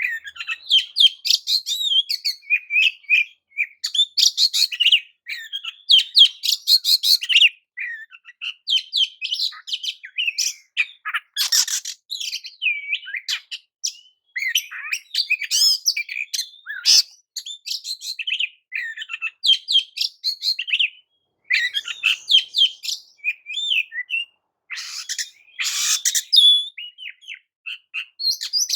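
Oriental magpie-robin (kacer) singing a fast, varied song of sharp chirps and whistles, in phrases broken by brief pauses.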